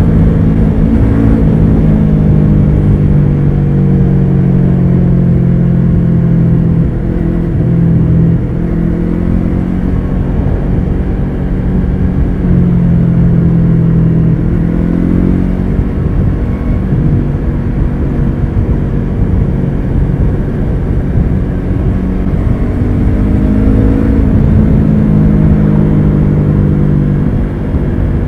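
Yamaha R3's 321 cc parallel-twin engine through an unbaffled Akrapovic carbon slip-on exhaust, heard while riding. The engine pitch falls over the first several seconds, climbs and drops sharply about halfway through, then climbs again near the end before falling away.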